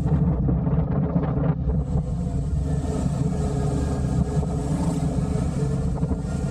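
Motorcycle engine running steadily while under way, with wind rushing over the bike-mounted microphone, the wind hiss growing stronger from about two seconds in.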